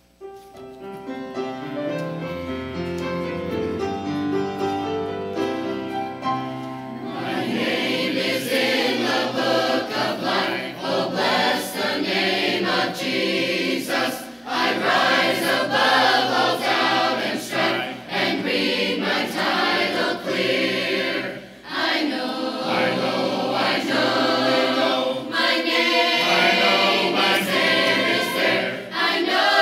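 Church choir singing a hymn with grand piano accompaniment. The piano plays alone for about the first seven seconds, then the full choir comes in.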